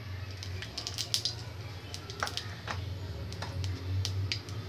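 Cumin and mustard seeds crackling in hot oil in a kadai, with irregular sharp pops and sputters over a low steady hum.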